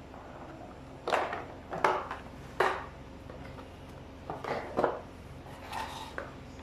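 Plastic housing of a Hyundai pressure washer knocking and clattering as its cover is pulled off and handled: a handful of sharp knocks, the loudest between one and three seconds in, with a few more near the end.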